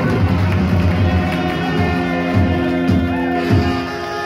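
Live band playing, with guitar among the instruments; held notes in the second half and a few heavy low drum beats near the end.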